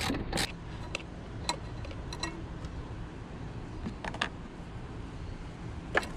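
A handful of scattered metal clicks and clinks from a ratchet wrench and socket undoing the bolt of the negative battery cable's ground eyelet, and from the tool being set down, over a faint steady background.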